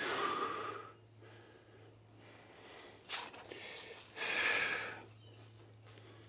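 A man breathing hard to recover after an exhausting exercise set: three heavy, breathy exhales, a short sharp one about three seconds in and the longest just after four seconds. A steady low hum runs underneath.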